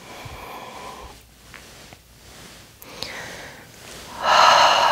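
Breathing close to a chest-clipped microphone: soft breaths in the first second and again about three seconds in, then a much louder, longer breath starting about four seconds in.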